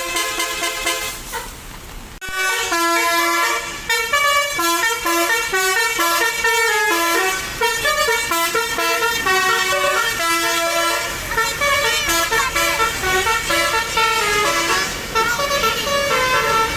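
Telolet basuri musical bus horn, run by a DAV module, playing a fast tune of stepped notes. It falls quieter for about a second near the start, then comes back with a click about two seconds in and plays on without a break.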